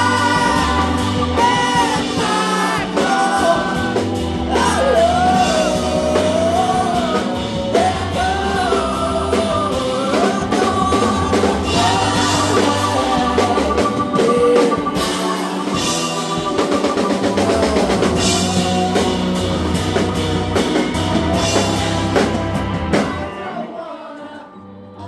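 Live indie rock band playing: a sung lead vocal over electric guitars, bass and drum kit. Near the end the drums and voice drop away, leaving a quieter low held chord.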